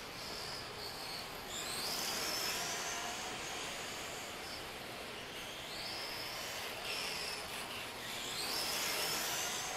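The brushless motor and drivetrain of a 1/10 electric RC car whine as it drives on concrete, climbing in pitch as the car speeds up, about a second and a half in and again near the end. The motor is running sensorless, with its sensor cable unplugged. A steady hiss sits underneath.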